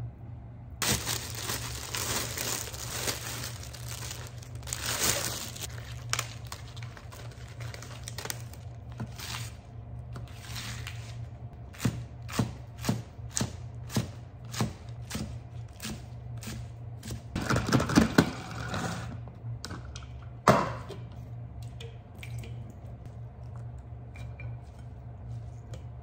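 Kitchen knife chopping lettuce on a plastic cutting board: single chops about two a second, then a quick flurry of louder chops and one hard knock, over a low steady hum. Before the chopping there is a rustling and tearing of leaves.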